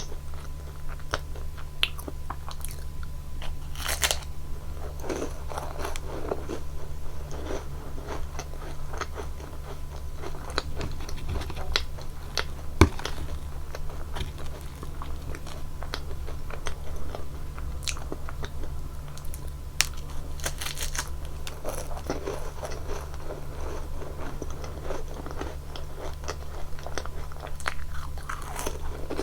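Close-miked crunching and chewing of Nunettine puff-pastry cookies dipped in whipped cream: crisp, flaky bites and crackly chewing, with one sharp snap about halfway through. A steady low hum runs underneath.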